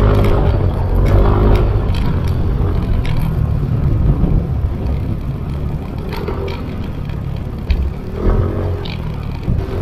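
Riding a Yamaha Mio i 125 scooter: wind rumble on the microphone over the scooter's single-cylinder engine running at road speed.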